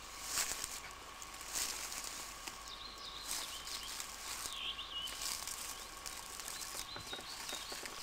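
Footsteps swishing through tall grass and brush, with a few faint bird chirps.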